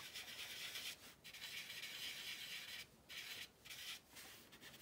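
Quiet scratchy rubbing of a stick of dry pastel drawn across rough-surfaced toned paper, in about four strokes with short pauses between them.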